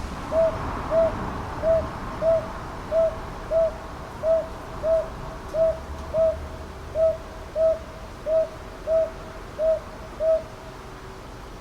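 Northern boobook (Japanese brown hawk-owl) giving its hoot call: a regular run of about sixteen short, soft 'ho' notes, each slightly rising and falling, evenly spaced a little over half a second apart, stopping shortly before the end.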